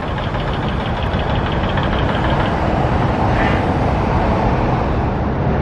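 Steady noise of road traffic, motor vehicles passing along the street.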